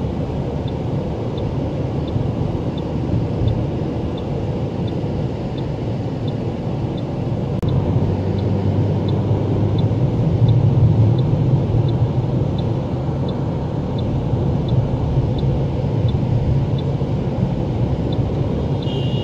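Steady low rumble of a car's engine and tyres heard from inside the cabin while driving, growing louder about eight seconds in.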